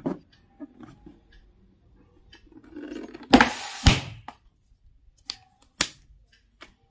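A rubber balloon bursting with a loud, sudden bang a little over three seconds in as it is pricked with a plastic pick, with faint handling of the balloons before it. A single short, sharp click follows near six seconds.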